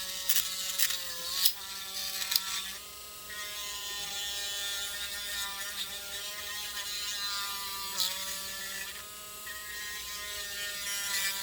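Small electric sanding tool running with a steady motor whine, widening the opening of a replacement neck-peg socket. Its pitch sags briefly a few times, with a few light clicks in the first couple of seconds.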